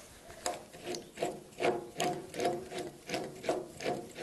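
Rhythmic metal-on-metal rasping squeaks, about two to three a second, as a fastener on the bandsaw's blade-guide adjusting slide is turned loose by hand.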